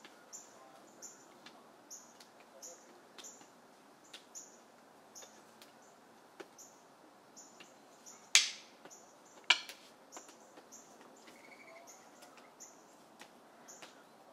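Rattan eskrima sticks clacking against each other in a fast partner drill: a steady run of light clicks, with two much louder cracks about a second apart a little past halfway. A bird chirps over and over in the background.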